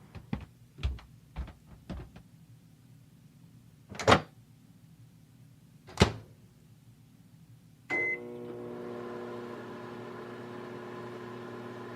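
Microwave oven: two sharp clacks of the door, a short beep, then it starts running with a steady hum. A few soft knocks come before.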